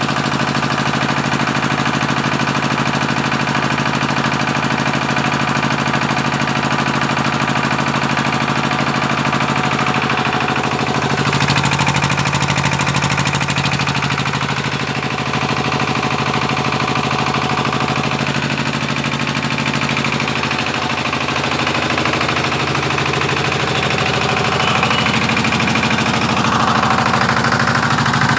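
20 HP single-cylinder power-pack engine running steadily, driving a 15 kVA single-phase generator, with a rapid, even firing beat; the tone shifts a little about eleven seconds in and again about twenty seconds in.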